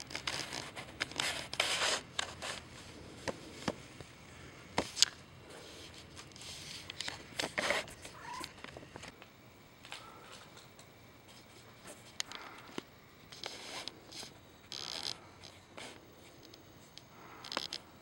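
Domestic barn cat meowing now and then amid rustling, scuffing and a few sharp knocks, the loudest knock about five seconds in.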